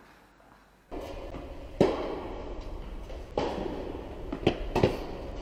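Tennis ball being struck by rackets and bouncing on an indoor court, four sharp pops that echo through a large hall, starting after a quiet first second.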